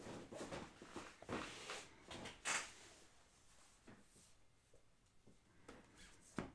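Objects being handled on a desk: a scattering of knocks, clatters and rustles, the loudest about two and a half seconds in, with a sharp click near the end.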